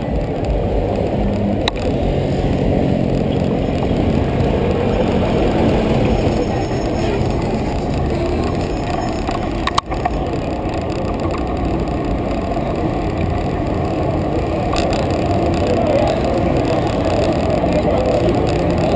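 Steady low rumble of wind and road noise on a bicycle-mounted camera riding through city street traffic, with cars and buses around it. A single sharp click comes about ten seconds in.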